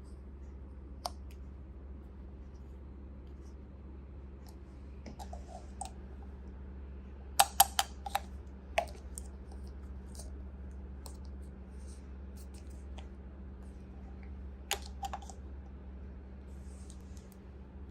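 Hard plastic toy pieces being handled, giving scattered sharp clicks and taps, with a quick cluster of several about halfway through.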